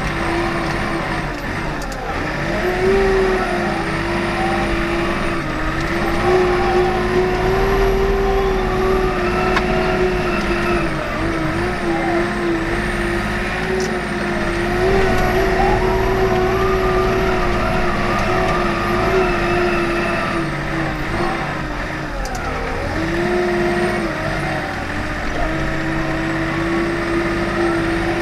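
Komatsu WA40 mini wheel loader's diesel engine running steadily under load while driving a front snow blower attachment. The engine note sags briefly twice, about two seconds in and again about 22 seconds in.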